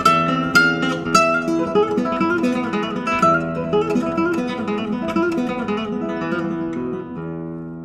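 Background music on acoustic guitar: quick plucked and strummed notes, then a final chord held about seven seconds in that slowly fades away.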